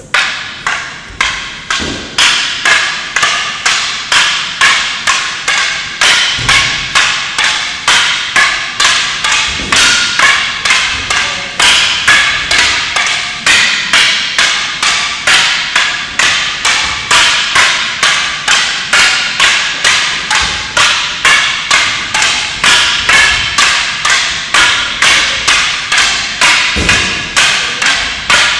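Wooden bokken practice swords striking one another in paired sword practice: a continuous, very regular clack-clack of wood on wood at about two strikes a second.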